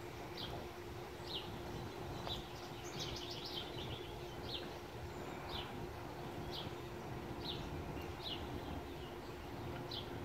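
A bird chirping: short, high notes that slide down in pitch, about one a second, with a quick run of rapid notes about three seconds in. A steady low hum runs underneath.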